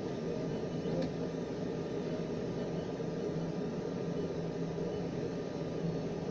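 XYZ da Vinci Jr. 1.0 3D printer running with a steady mechanical hum, with a faint tick about a second in.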